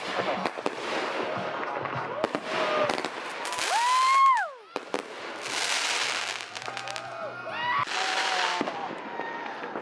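Consumer fireworks going off: crackling pops and hissing sprays, with a whistle that rises and then drops steeply about four seconds in, and a few shorter whistles near the end.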